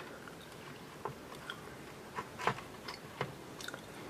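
Small plastic clicks and light knocks as an induction cooktop's copper coil assembly, on its plastic holder, is handled and set back into the cooktop's plastic base. The knocks are scattered, the loudest about two and a half seconds in.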